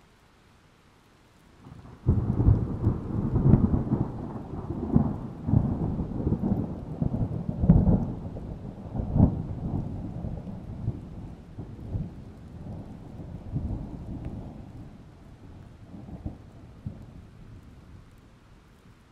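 Rolling thunder: a low rumble that starts suddenly about two seconds in, with several louder cracks in the first half, and dies away slowly over some fifteen seconds.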